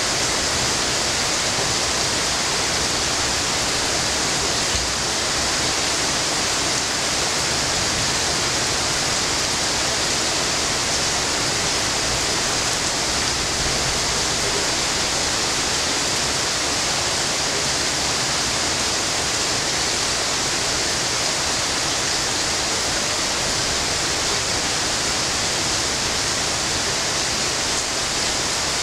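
Steady rain falling, a continuous even hiss with no breaks.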